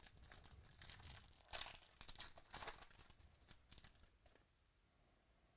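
Foil wrapper of a baseball card pack being torn open and crinkled: a run of irregular crackly tears, loudest in the middle, dying away after about four seconds.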